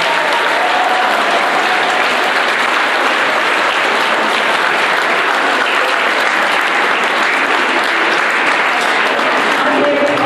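An audience of schoolchildren clapping steadily as a round of applause.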